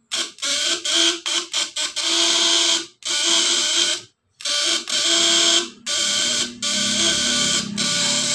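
Homemade 12-volt fish-shocker inverter buzzing loudly as its vibrating contact-breaker points drive the coil, with a light bulb as its load. It is switched on and off in several quick bursts at first, then runs in longer spells of a second or so with short breaks between them.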